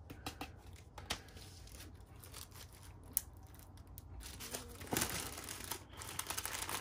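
A small plastic diamond-painting drill tray being handled and set down on a table, with a few light ticks and taps, then plastic packaging crinkling about five seconds in.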